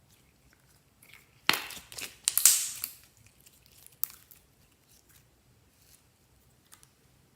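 A burst of crinkling and crackling, as of something crushed or crumpled by hand, lasting about a second and a half, then a single sharp click about four seconds in.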